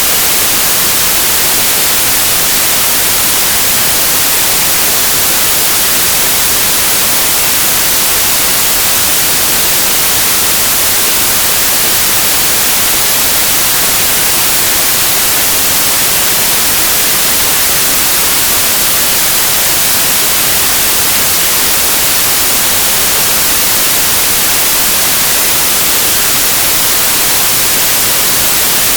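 Steady white noise: an even hiss across all pitches, brightest in the treble, with no changes.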